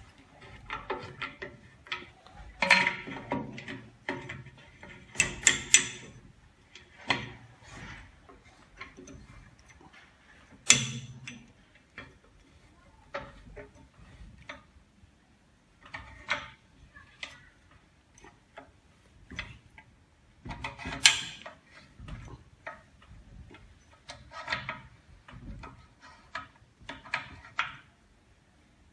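Irregular clicking and knocking from the orange clamp handles on the door of an autoclave LCD bubble remover as they are turned and tightened one by one to lock the door shut. The clicks come in short clusters separated by brief pauses.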